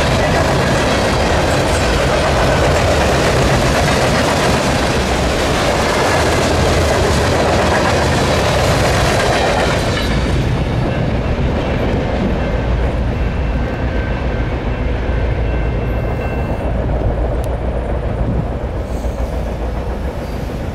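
Train rolling past close by with a loud, steady rush of wheels on rail. About halfway through the hiss drops away, leaving a lower rumble with faint, thin high tones.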